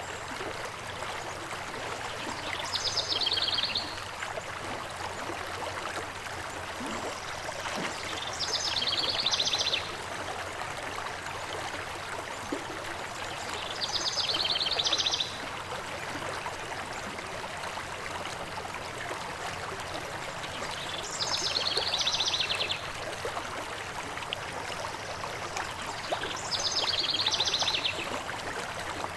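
Steady rushing of a stream, with a songbird's fast trilled song about a second and a half long, repeated five times at even intervals of about six seconds.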